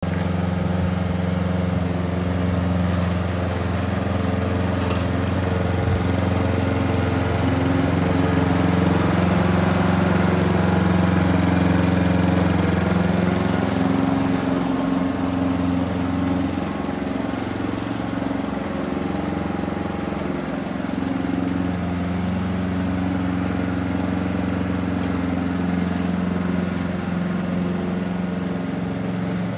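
Walk-behind petrol rotary lawn mower running steadily while cutting grass, its engine note wavering slightly now and then as the load changes.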